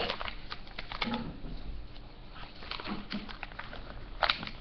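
Clear plastic packet crinkling and rustling in a toddler's hands as she tries to open it: short, irregular crackles, with a louder cluster near the end.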